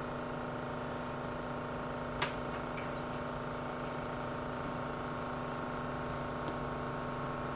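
A 3D-printed impeller vacuum pump, driven by an RS-540 brushed electric motor, running steadily at raised power as a soldering fume extractor: an even whine of several steady tones. A single light click about two seconds in.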